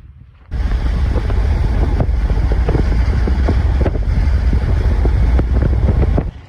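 Strong wind buffeting the camera microphone: a loud, low, gusty rumble with irregular thumps. It starts abruptly about half a second in and cuts off just before the end.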